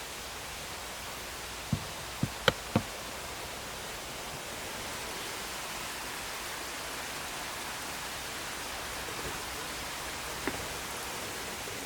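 Steady rushing background noise, like running water or rain, with four sharp knocks about two seconds in and one fainter knock near the end.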